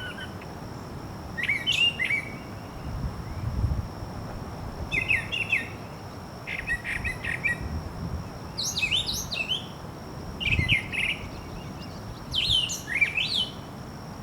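A songbird singing short, varied phrases of quick chirps and slurred notes, one phrase every second or two, over a faint steady high-pitched hum.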